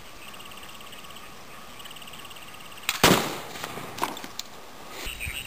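A single loud, sharp bang about three seconds in, fading quickly: a plastic pop bottle pumped full of compressed air bursting as a crossbow arrow hits it. Faint insect chirping runs before the bang.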